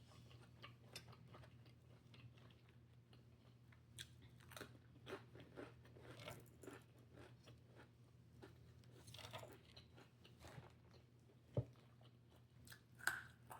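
A person chewing crunchy salad with irregular soft crunches and smacks, over a faint steady low hum. One sharp click stands out about three-quarters of the way through.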